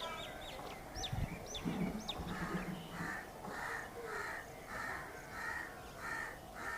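A crow cawing in a steady series of harsh calls, about two a second, starting about two seconds in. Before that, quick high chirps from small birds.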